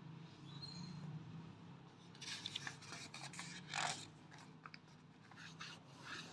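Paper pages of a softcover book being turned by hand: rustling and scraping, loudest about two to four seconds in, followed by a few short rubs of paper.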